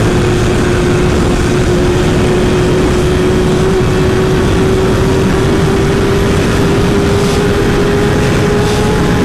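Kawasaki Ninja sportbike's inline-four engine held at high revs under full throttle in a high gear, its steady note climbing slowly in pitch as the bike accelerates past 250 km/h, under heavy wind rush.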